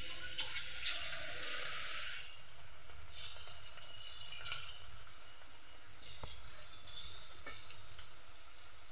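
Batter-coated snake gourd slices sizzling as they are dropped into hot oil for deep frying: a steady frying hiss, strongest in the first two seconds, with a few small sharp ticks later on.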